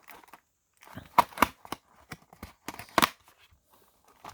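Trading-card packaging being handled: a series of sharp crinkles and clicks, loudest a little after a second in and again about three seconds in.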